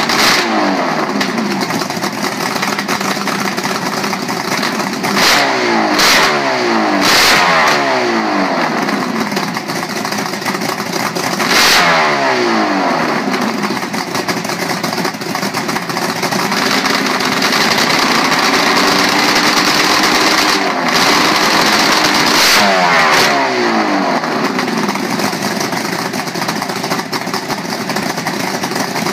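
Two-stroke V8 engine on a stand, running on open headers and revved by hand. It is blipped sharply several times, each rev gliding back down toward idle, with a spell of steadier higher revs past the middle.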